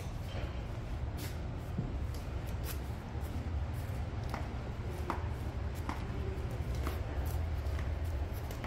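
Scattered light clicks and rustles, irregular, about one or two a second, over a steady low hum.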